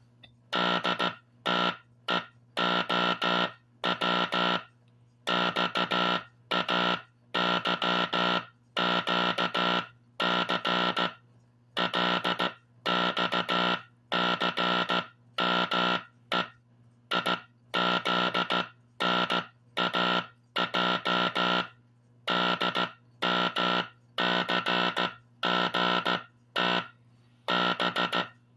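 Teleplex code practice oscillator sending Morse code from a recorded code drum through its speaker: a buzzy tone keyed on and off in slow, unevenly spaced dots and dashes. A faint low hum continues between the tones.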